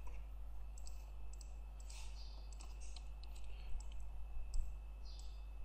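Computer mouse clicking, scattered light clicks over a steady low electrical hum.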